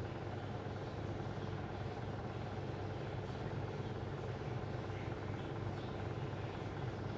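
Steady low hum with a faint even hiss and no change in level.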